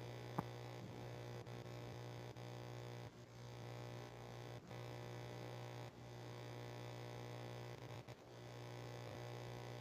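Steady low electrical hum with a faint buzz of overtones above it, and a single small click about half a second in.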